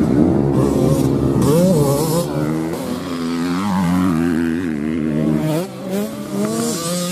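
Motocross bike engines revving hard while racing, the pitch climbing and dropping again and again as the riders work the throttle, with a brief dip in loudness near the end.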